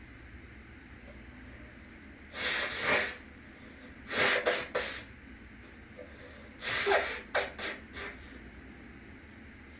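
A person sneezing in three bouts, the later two breaking into several short bursts each, over the steady hum of a fan in the next room.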